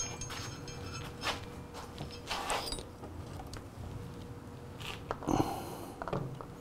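Faint, scattered knocks and rustles of hands handling a clear brake-bleed hose and catch bottle at a motorcycle's front brake caliper.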